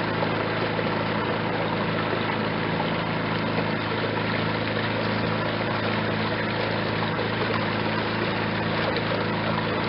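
Engine of a motorized wooden boat running steadily under way, a constant low drone over an even rush of noise that does not change.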